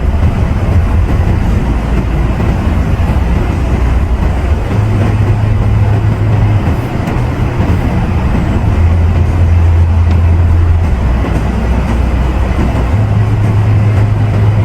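Car driving along: steady road and tyre noise under a low drone that shifts in pitch every few seconds as the speed changes.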